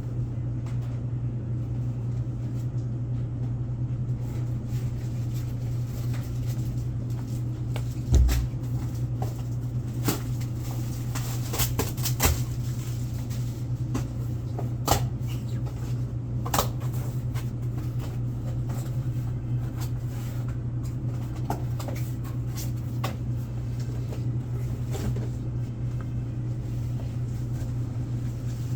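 Handling goods while sorting a convenience store delivery: scattered knocks, clicks and clatter of boxes and products being moved, with one louder thump about eight seconds in, over a steady low hum.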